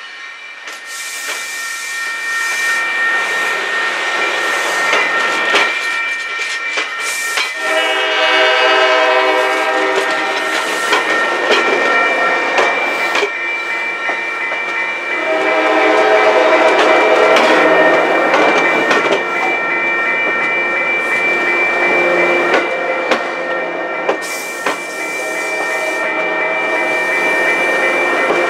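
Diesel commuter train passing close by, its wheels clacking over the rail joints under a steady high squeal. A chord-like horn sounds briefly about eight seconds in, then again for a few seconds around sixteen seconds and near the end.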